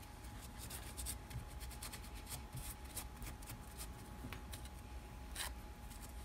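Fingers handling a wad of tissue paper at a steel tailstock barrel: soft rustling with many faint, light clicks and ticks.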